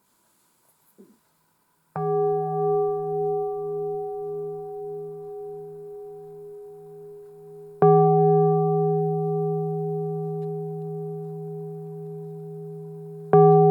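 Singing bowl struck three times: about two seconds in, again some six seconds later, and once more near the end. Each strike rings out at the same low pitch with a slow pulsing wobble and fades gradually.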